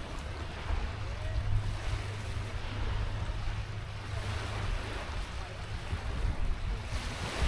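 Wind buffeting the microphone: a steady low rumble under an even rushing hiss.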